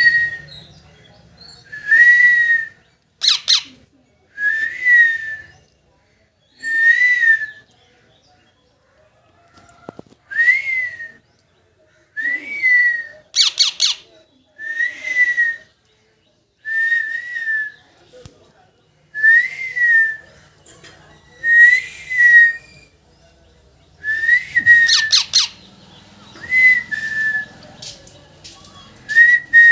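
A parrot repeating a whistled call about every two seconds, each call a short note that rises and falls. A few sharp, shrill squawks come in between.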